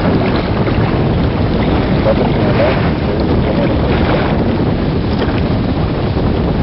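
Wind blowing across a camcorder microphone: a loud, steady rumbling rush without any break.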